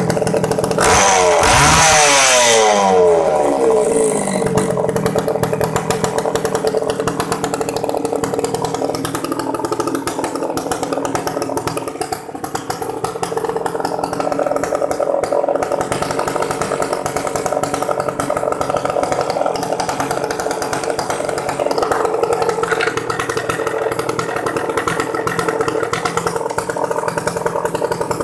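Makita E2835 two-stroke chainsaw engine running with no bar or chain fitted. It revs up and drops back in the first few seconds, then idles steadily.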